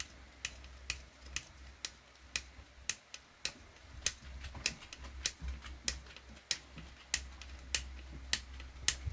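Screw being turned into a fresh hole with a hand hex driver, a sharp click about twice a second as each twist goes in. A steady low hum runs underneath.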